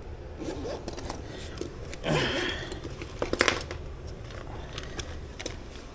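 Light metallic clinks and rattles of tools or metal parts being handled, with a louder clatter of several sharp clicks about three and a half seconds in, over a steady low hum.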